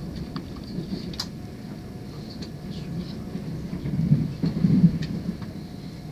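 Electric commuter train running, heard from inside the carriage: a steady low rumble of wheels on the track, with two louder low knocks about four and five seconds in and a few faint clicks.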